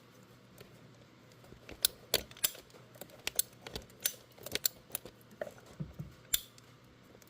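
A hand cutting tool snipping and clicking, working through a rubber radiator hose in short, irregular cuts, with about a dozen sharp clicks spread unevenly.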